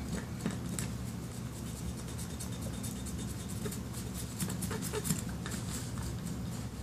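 Pink plastic digging tools scraping and picking at a plaster fossil-excavation block in irregular short scratches and ticks, over a steady low hum.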